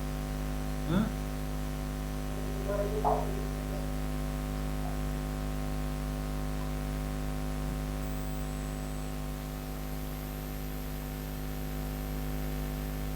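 Steady electrical mains hum: a low buzz with a stack of evenly spaced overtones. Two short rising sounds come about one and three seconds in.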